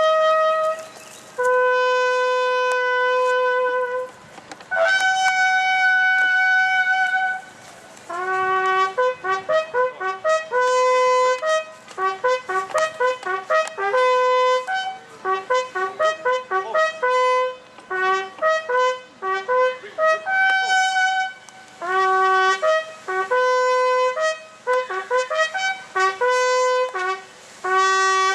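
A solo brass horn plays a call: a few long held notes at first, then a run of short, quickly tongued notes, one note at a time.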